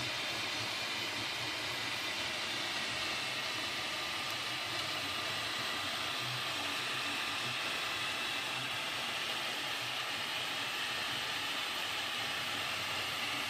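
Up! Plus 3D printer running a print: a steady fan hiss, with faint tones from its stepper motors shifting as the print head moves.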